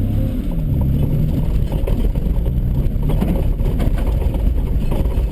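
Holden VN Commodore engine revving, its pitch rising and falling repeatedly over a heavy rumble as the car is driven hard on grass.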